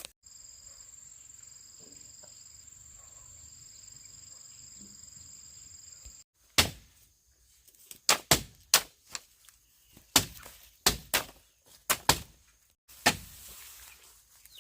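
Bamboo being chopped: about a dozen sharp, irregular chopping strikes in the second half. Before them is a steady high-pitched buzz.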